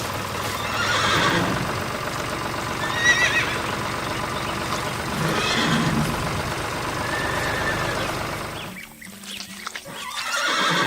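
Horse whinnying several times over a steady background, which drops away near the end.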